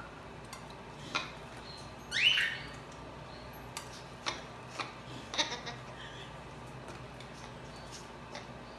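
Blue-fronted Amazon parrot giving one short squawk that rises and falls about two seconds in, while it flaps and shakes its wet wings. A few short clicks and rustles are scattered through the first half.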